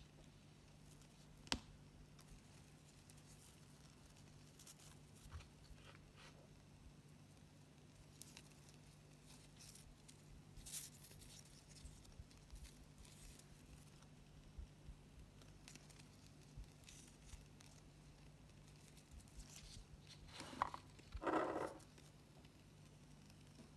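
Near silence: faint handling sounds of satin ribbon pieces being shaped by hand, with a sharp click about a second and a half in and a louder brief scuffle near the end, over a low steady hum.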